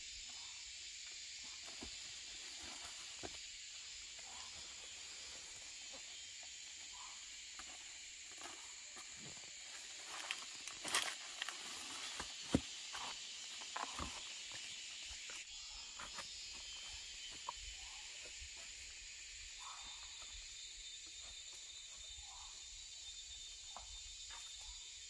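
Steady high-pitched insect chorus, with scattered rustles and knocks and a cluster of louder knocks near the middle.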